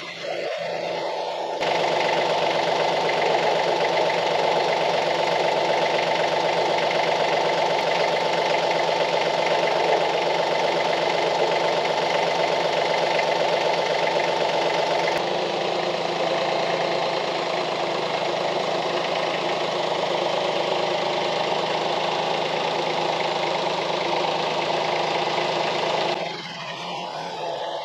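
Compact tractor's diesel engine running steadily while it holds a load up on its front loader, dropping in level near the end.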